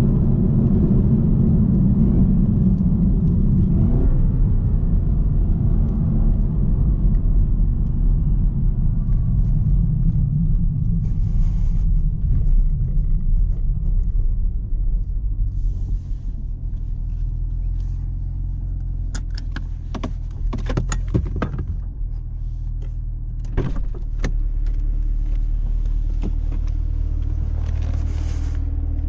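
Supercharged 6.2-litre V8 of a 2018 Camaro ZL1 running loud under load, then settling about halfway through to a steady low rumble. A series of sharp clicks comes in the second half.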